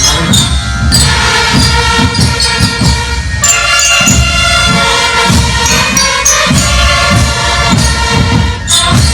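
Military marching band playing, with drums beating under bright bell-lyre (xylophone-like) tones.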